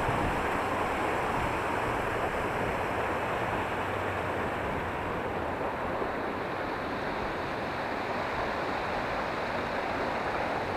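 Steady rush of a shallow glacial stream running over stones.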